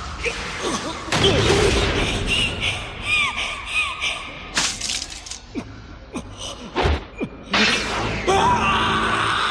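Dramatic sound effects over a music bed: a string of sudden crashing and shattering hits mixed with short, eerie sliding tones.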